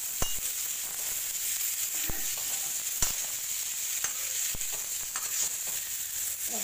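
Raw mango pieces and spices sizzling in hot mustard oil in a kadhai as they are stirred with a metal ladle. There is a steady hiss of frying, and the ladle clinks against the pan a few times.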